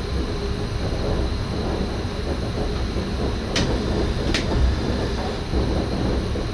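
Cab noise of an NS SGM Sprinter electric train: a steady low rumble with a thin high whine, and two sharp clicks a little under a second apart about midway through.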